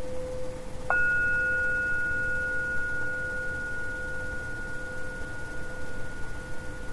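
A bell is struck about a second in and rings on in one long, steady high tone with a fainter overtone above it. A lower steady tone sounds under it throughout.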